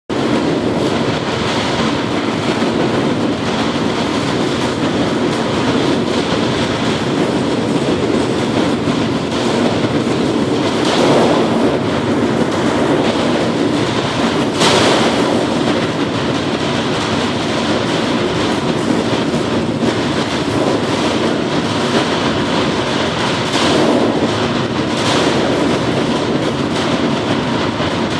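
Aircraft engine running, heard from behind: a loud, steady, noisy roar with no clear pitch that swells briefly a few times.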